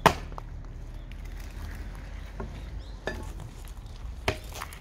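One sharp knock right at the start, an axe striking a log being split for firewood, followed by a few fainter knocks and clicks.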